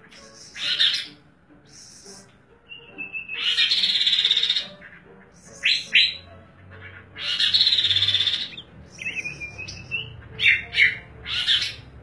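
Caged kaso-kaso (tepus glagah) songbirds singing loudly in bursts: two long rasping, buzzy phrases, a pair of sharp notes between them, and a run of quick separate notes near the end.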